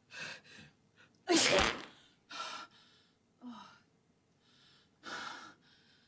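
A woman's single loud sneeze about a second and a half in, going off together with an explosive bowel release: the comic 'shit sneeze'. Short gasping breaths come before and after it.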